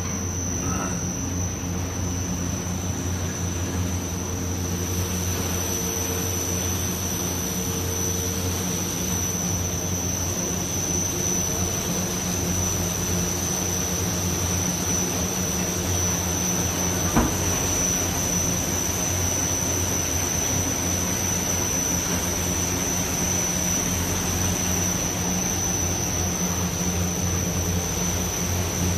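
Brush sanding and polishing machine running steadily, its motors humming and brush rollers spinning as panels feed through, with a steady high whine over the hum. A single sharp click a little past the middle.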